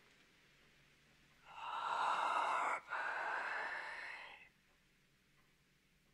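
A man's drawn-out, breathy whisper of the word "carpe", about three seconds long with a short break partway through.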